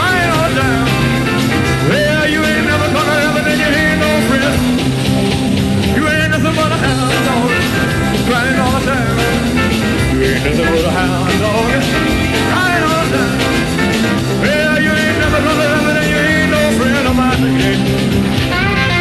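A rock and roll song performed live: a male lead vocal over a full band.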